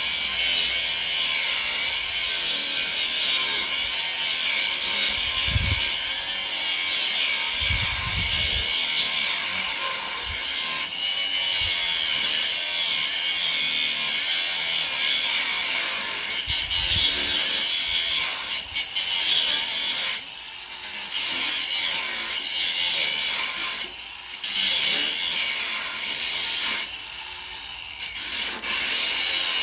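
Angle grinder grinding metal steadily, easing off briefly several times in the last third.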